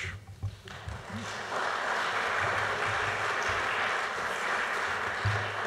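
Audience applauding, building up over the first second or two and then holding steady.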